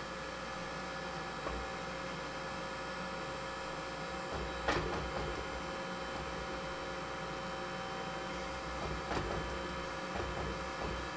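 Hydraulic forging press humming steadily as its pump runs, with a sharp metal clank about halfway through and a lighter one near the end.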